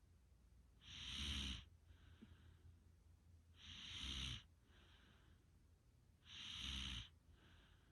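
A person snoring: three loud snores, about one every two and a half to three seconds, each a low rattle with a breathy hiss and each followed by a softer breath.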